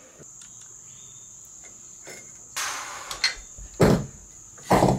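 A steady high trill of crickets, with a scrape about two and a half seconds in and two loud clunks near the end from hands working at a front disc brake and caliper.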